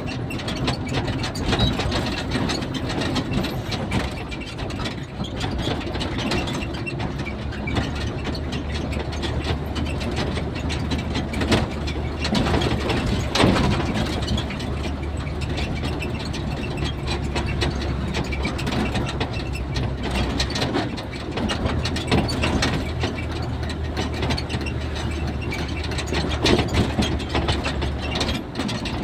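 A vehicle's engine running with a steady low hum under a continuous fast rattle of loose parts, as heard while riding.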